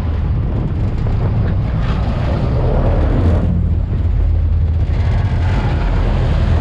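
Wind buffeting the microphone over the rush of water around a fishing boat: a steady low rumble with a hiss that eases for a moment in the middle.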